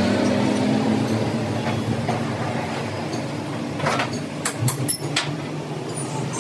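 Large metal lathe running with a steady low hum, with a few sharp metallic clinks about four to five seconds in as its tool post and carriage are handled.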